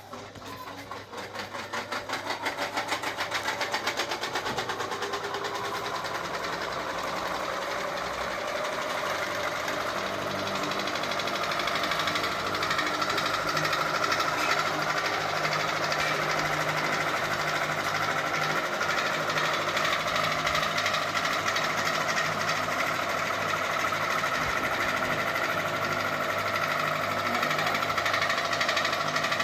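Ceiling fan starting up and running, with a steady hum and a fast rhythmic rattle. It builds over the first few seconds, then runs steadily.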